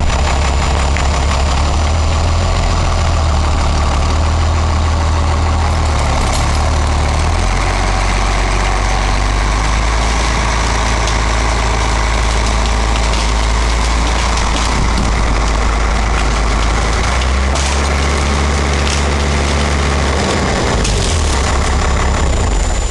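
An engine running steadily with a deep, loud rumble whose low hum shifts about a third of the way in and again near the end.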